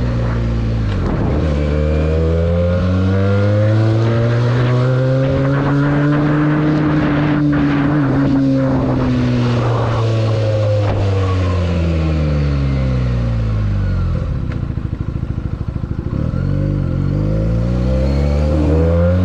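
Benelli TNT 300 parallel-twin engine through its stock exhaust, the revs rising and falling in long smooth sweeps. The engine drops to low revs with slow, distinct firing pulses around fourteen to sixteen seconds in, then picks up again near the end.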